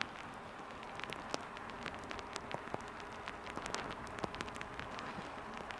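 A steady wet hiss with irregular sharp ticks of raindrops striking the camera while riding in the rain.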